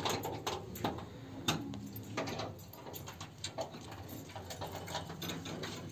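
Light, irregular clicks and metallic rattles of a door latch and lock on a corrugated-metal door being worked by hand.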